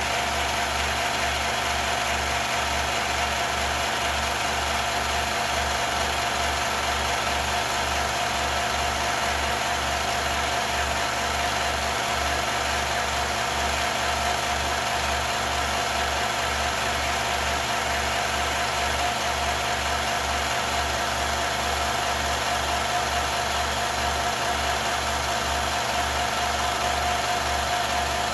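Film projector running: a steady mechanical whir and hiss with a constant tone through it and a low, even rhythmic pulse.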